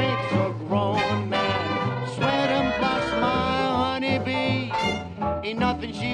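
Upbeat swing-style background music with a steady bass pulse.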